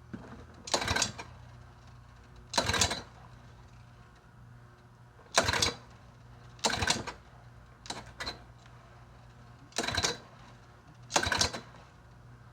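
Small lawn mower engine being cranked over in about seven short bursts of roughly half a second each, spun but not catching. The owner suspects there is too little fuel in the tank.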